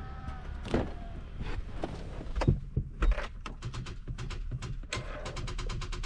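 A Lincoln MKX's starting system clicking as the key is tried: a few single clicks, then a rapid chatter of about a dozen clicks a second near the end, typical of a starter solenoid on too little battery voltage.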